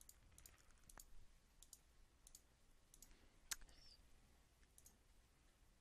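Faint computer mouse clicks, several at irregular intervals with the loudest about three and a half seconds in, over near-silent room tone.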